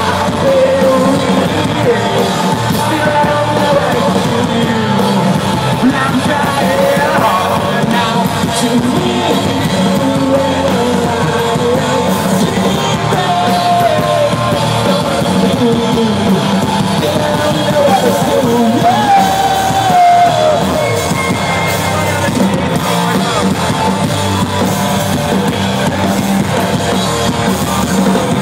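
Rock band playing loudly live, with guitars and a singer's voice over the band.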